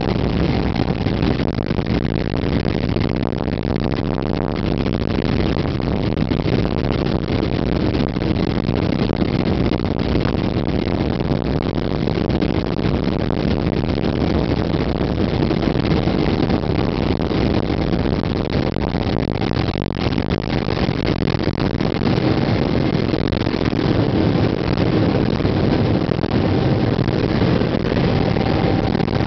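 Cabin noise of a Boeing 777-300ER at take-off thrust, heard from inside the cabin: its two GE90-115B turbofans running steadily and loudly through the take-off roll and initial climb. The sound is a deep, even rumble with a faint steady whine.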